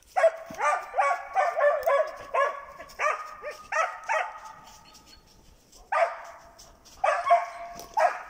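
Hunting dog barking in quick bursts of loud, pitched barks, about two to three a second, stopping briefly about halfway and then starting again near the end: a dog baying at a marten it has treed.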